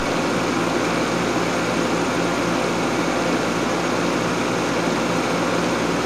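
Home-built R290 heat pump water heater, made from an air conditioner, running steadily: the compressor hums and the radiator fan blows while it heats the water.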